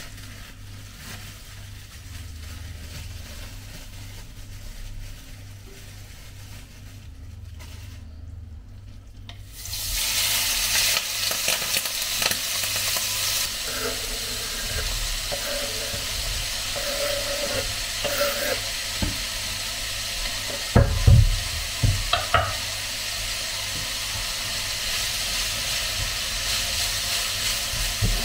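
Minced meat going into hot oil in a frying pan and sizzling loudly, the sizzle starting suddenly about ten seconds in after a quieter stretch. Chopped onion is added and a wooden spoon stirs, with a few knocks against the pan a little past twenty seconds.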